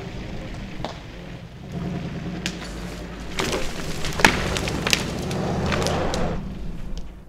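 An old 1976 Ford F-350 flatbed truck engine pulls under load as the truck skids a log on a rope, the engine swelling toward the end. It is mixed with several sharp snaps and cracks of branches and brush breaking as the log drags out.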